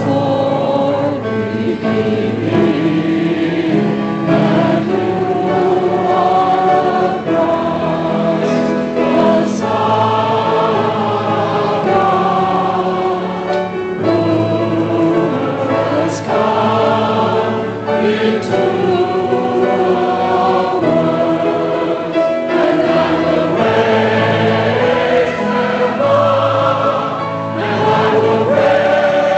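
A choir singing, many voices holding sustained chords that change every second or two.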